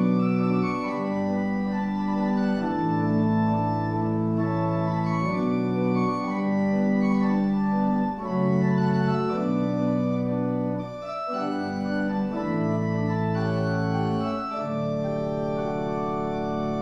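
Organ playing slow, sustained chords that change every second or two, with a brief break about two-thirds of the way through.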